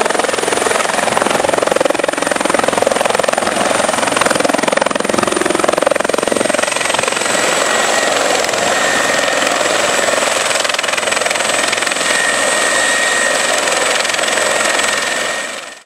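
Westpac rescue helicopter landing, its rotor and turbine running loudly and steadily, with a thin high turbine whine that drops slightly in pitch about halfway through.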